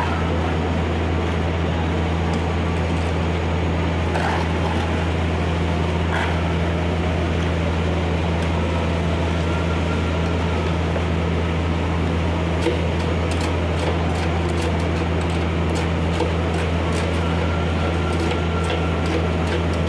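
A motor running with a steady low hum. Faint clicks and scrapes from a steel scoop and tamping rod working fresh concrete in a slump cone come more often in the second half.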